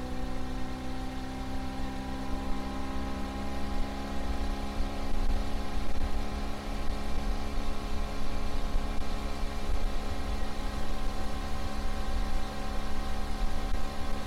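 Small boat outboard motor running steadily under way. Its pitch rises a little over the first couple of seconds, then holds.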